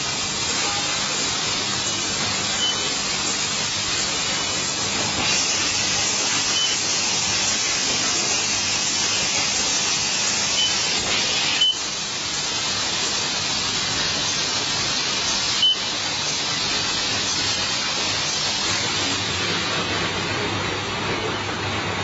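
Steady hissing background noise with two brief sharp clicks, about twelve and sixteen seconds in.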